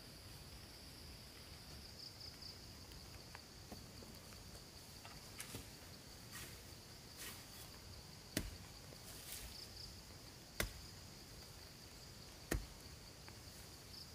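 Faint, steady high-pitched chirring of insects, with a few sharp knocks about two seconds apart in the second half and some lighter taps before them.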